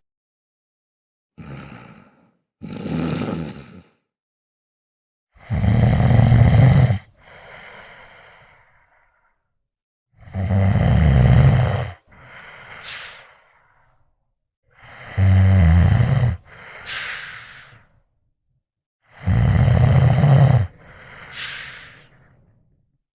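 Loud snoring: four long snores on the in-breath, roughly every four to five seconds, each followed by a quieter out-breath that ends in a high whistle rising in pitch. Two shorter, softer snores come first.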